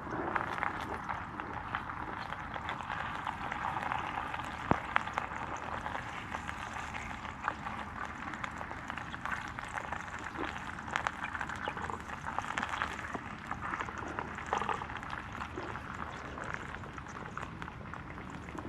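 Campfire cooking: a steady sizzle with many small crackles and a few sharper pops.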